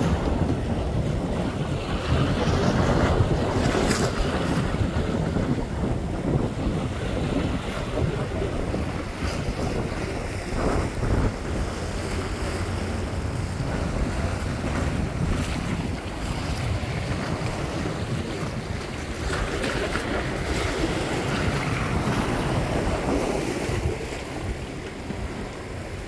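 Sea waves washing and breaking over shore rocks, with wind buffeting the microphone; the surf swells louder twice.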